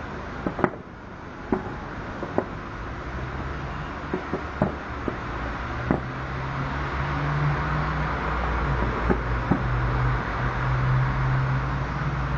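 Distant fireworks: a dozen or so sharp bangs of shells bursting at uneven intervals, over a steady low rumble that swells after about three seconds.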